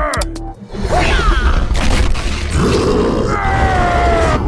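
Cartoon fight sound effects: grunting and groaning, with a long falling whistle-like tone near the end.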